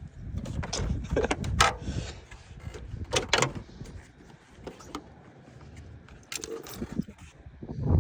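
Sharp knocks and clatter of tools and parts being handled while working on the oil filter, several in the first half and a couple more near the end, over a low rumbling handling noise.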